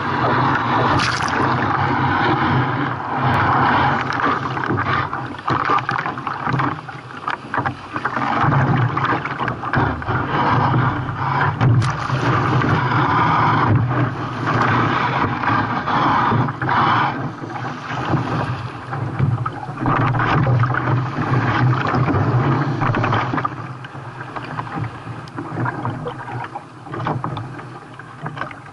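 Sea water rushing and splashing against a Knysna Genius carbon kayak as it moves through waves, surging up and down continuously. The water noise eases over the last five seconds or so.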